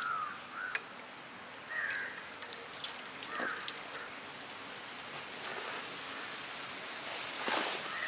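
Crows cawing a few times, then about seven seconds in a brief rustle of crushed potato chips being scooped up and sprinkled by hand.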